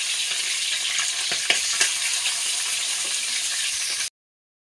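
Pieces of snakehead fish sizzling steadily as they shallow-fry in hot mustard oil in a wok, with a few sharp ticks about a second in. The sound cuts off suddenly just before the end.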